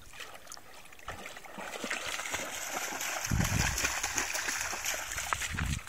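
Lake water splashing and lapping, a hissing wash that builds about a second and a half in, with a low rumble joining it over the last couple of seconds.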